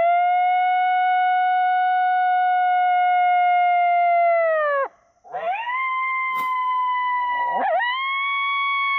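A hunter blowing a hand coyote howler call: two long, drawn-out howls. The first is held steady and drops off about five seconds in. The second rises, then is held, with a brief break in pitch near the end.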